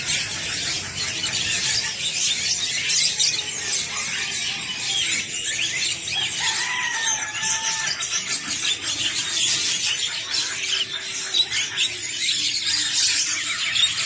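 Dense, continuous high-pitched chirping and squeaking from many caged birds together, with a clearer whistled note standing out about six seconds in.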